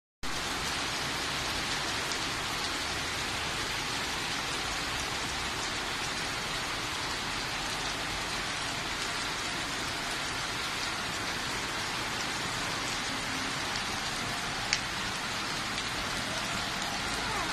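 Heavy rain pouring onto a flooded street and parked cars, a steady hiss of drops splashing on water and car bodies. A single sharp click sounds near the end.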